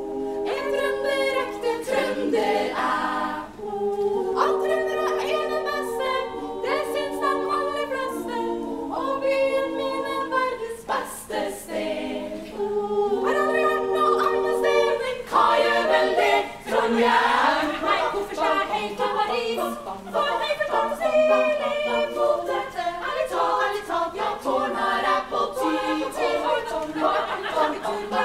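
Women's choir singing a cappella in close harmony, with long held chords at first and a quicker, busier passage from about halfway through.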